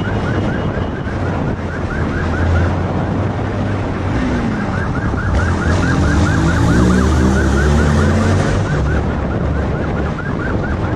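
Police motorcycle siren on a rapid yelp, about four chirps a second, over the motorcycle's engine, which revs higher and louder in the middle.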